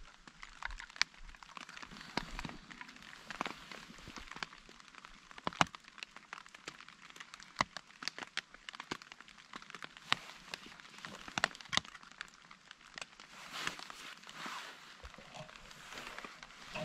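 Scattered raindrops tapping irregularly on a tarp overhead, with a spoon stirring a drink in a steel camping mug. A brief rustle about three-quarters of the way through.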